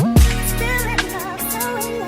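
Background R&B song with a sung melody over a steady beat.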